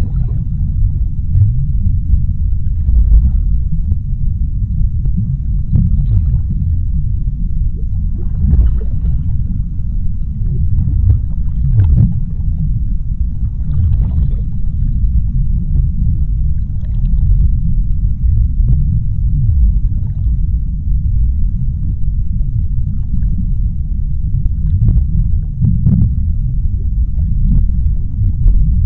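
Underwater ocean ambience: a deep, steady rumble with faint scattered crackles and bubbling above it.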